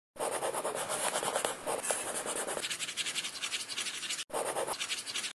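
Rapid scratchy scribbling of a pen on paper, a drawing sound effect. It breaks off for a moment about four seconds in, then scribbles again and cuts off near the end.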